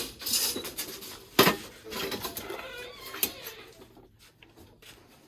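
Metallic clatter and rustling as a rabbit is handled during weighing, with one loud knock about a second and a half in and a sharp click around three seconds.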